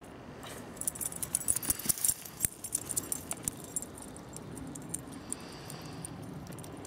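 Metal jingling and clicking from a dog's leash clip and collar as the Saluki is let off the leash: a quick run of jangles over the first few seconds, then only a low steady background noise.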